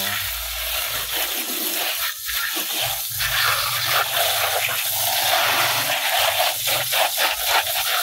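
Water sprayed from a garden hose spray nozzle onto plastic toy trucks and wet concrete: a steady hiss of spray with splattering.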